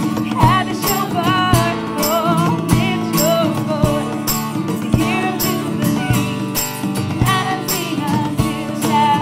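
Music: a wavering, ornamented melody over steady lower notes, kept in time by jingling percussion on a steady beat.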